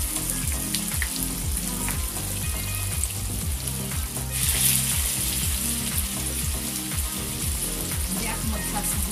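Tofu slices frying in hot oil in a pan: a steady sizzle that flares louder for about a second near the middle. Background music with a low beat runs underneath.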